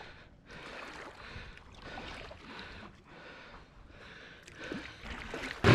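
Kayak paddle strokes through calm water, a soft swish and splash about once a second as the blades dip on alternate sides. A sudden loud rush of noise cuts in right at the end.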